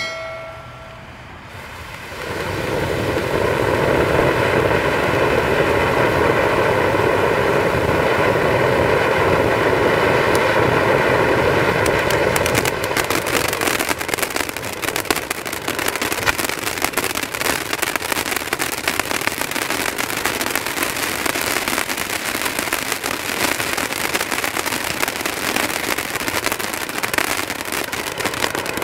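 A brief sharp sound with a short ring at the very start. About two seconds in, a 500-gram consumer firework fountain ignites and sprays with a loud steady rushing hiss. About halfway through the hiss gives way to a dense continuous crackle of crackling stars mixed into the spark jets.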